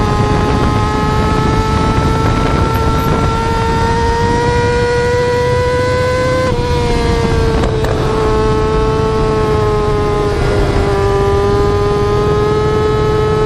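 Yamaha R6 sport bike's inline-four engine pulling at high revs: a high-pitched note climbs slowly, drops sharply about six and a half seconds in as at an upshift, then climbs again, over a rumble of wind and road noise.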